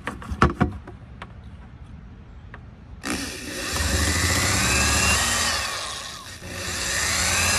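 A corded electric drill drilling out the stainless steel rivet that holds a Sunfish mast base. A few light clicks as the bit is set, then about three seconds in the drill spins up with a rising whine, eases off briefly and spins up again.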